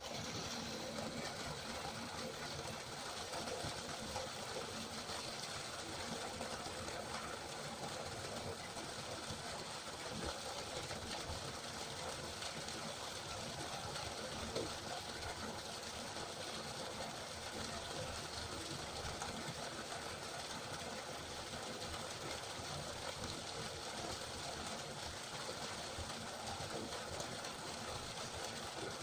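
River water flowing, a steady even rushing with fine splashing.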